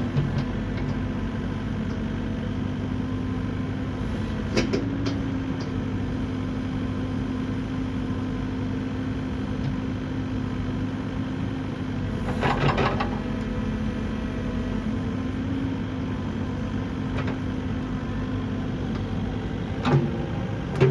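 Caterpillar 308E2 CR excavator's diesel engine idling steadily, with a few brief knocks: one about four and a half seconds in, a short cluster around halfway, and one near the end.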